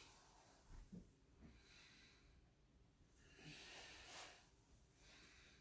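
Faint, slow breathing: two soft breaths, the second one longer.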